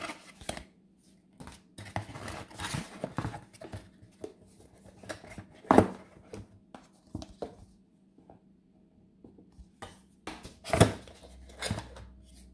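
Hands handling plastic and cardboard packaging: irregular rustling, small clicks and taps, with two louder knocks about six and eleven seconds in.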